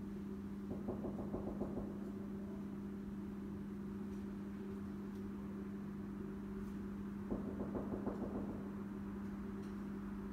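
Steady low mechanical hum, with two short bursts of rapid tapping or knocking, one about a second in and one about seven seconds in.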